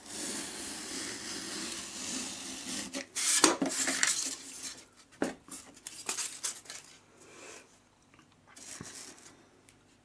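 Utility knife blade cutting through a styrofoam sheet: a long scraping stroke, then several shorter, sharper cuts and clicks, the loudest about three and a half seconds in.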